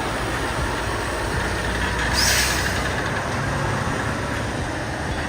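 Heavy truck engine running steadily, with a short hiss of air brakes about two seconds in.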